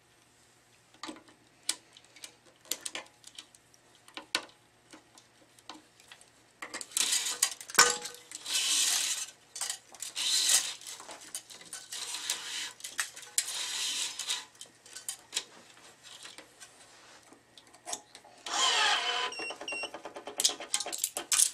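Tennis racket string being woven over and under the main strings and drawn through, heard as repeated hissing zips of string rubbing on string. Light clicks and taps come in the first few seconds, before the zips begin.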